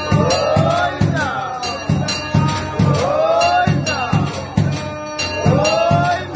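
Devotional temple music: a steady drum beat of about two strokes a second under a melody that slides up and down in pitch, with bright bell-like percussion on top.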